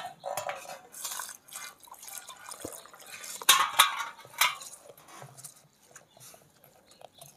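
Rice and lentils being washed by hand in a steel bowl: water poured in briefly at the start, then a hand swishing and rubbing the wet grains, with scattered splashes that are loudest around the middle.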